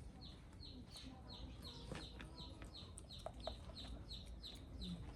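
A bird calling in a fast, even run of short, high, falling chirps, about three a second, faint over a steady low hum.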